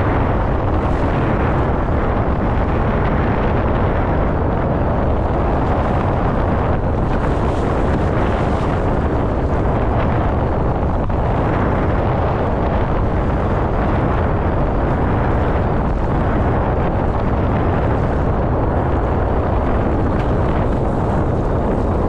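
Loud, steady wind buffeting the microphone while windfoiling on open water.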